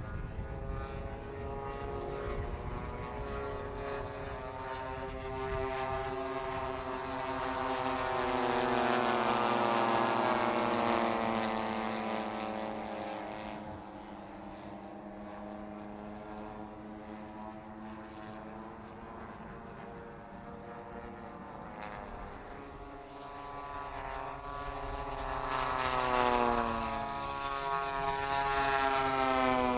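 Propeller engines of large-scale radio-controlled WW2 fighter models running together as the formation flies past. The drone swells and its pitch falls with each pass, loudest about ten seconds in and again near the end.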